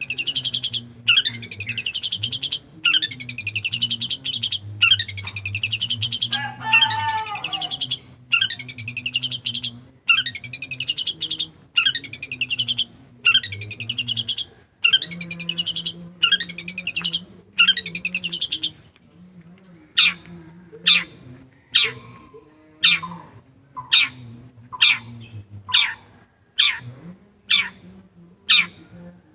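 Long-tailed shrike (pentet) singing hard: a run of harsh, rasping notes about once a second, broken by a lower, clearer call about a quarter of the way in. From about two-thirds through it switches to short, sharp downward-slurred notes, again about one a second.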